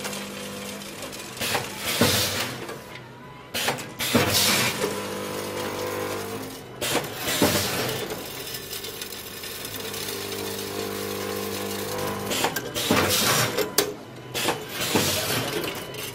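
Snack packing machine with a two-head vibratory linear weigher running: a steady electric hum from the vibratory feeders and drive, broken about five times by short, loud bursts of clatter as the machine cycles and snack pieces drop through it.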